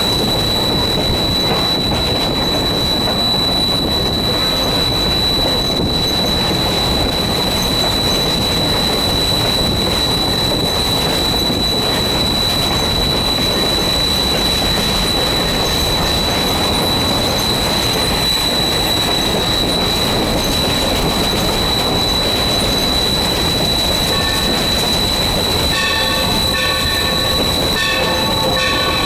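Locomotive cab noise of Valley Railroad No. 3025 running along the line: a loud, steady rumble and rattle with a constant high-pitched whine over it. Near the end a pitched sound joins in, cutting in and out repeatedly.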